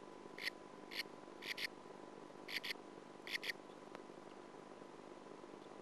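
Newly hatched sand martin chicks calling in the nest, the first sign that the eggs have hatched. About eight short, high cheeps come over the first three and a half seconds, several of them in quick pairs.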